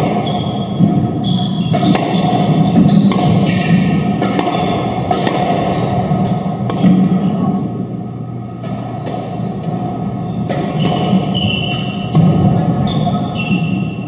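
Squash ball struck hard by racquets and smacking off the court walls again and again in a doubles rally, a sharp crack roughly every second, mixed with short high squeaks of court shoes on the wooden floor.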